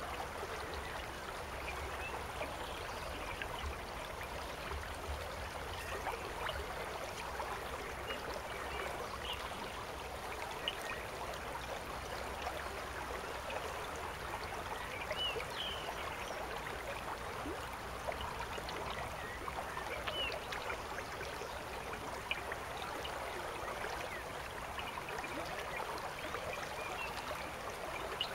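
River water flowing steadily over a shallow riffle: a continuous rushing, babbling hiss.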